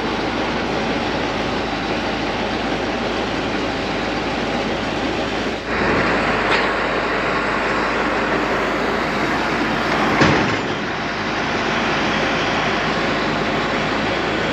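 Farm tractor running: a steady machine noise that turns suddenly louder and brighter about six seconds in, with one sharp knock about ten seconds in.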